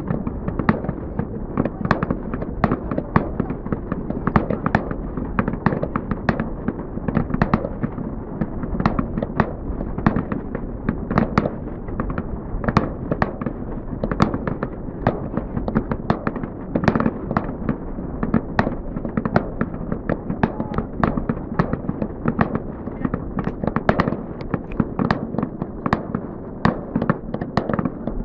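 Fireworks display going off: a dense, continuous run of bangs and crackles, several a second, over a steady low rumble.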